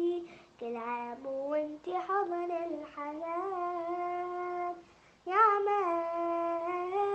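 A young girl singing a nasheed solo, drawing out long notes with slight bends and ornaments, with a short breath pause about five seconds in before she comes back in louder on a held note.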